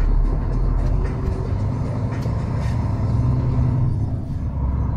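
Heavy truck's engine and road noise heard from inside the cab while driving: a steady low rumble.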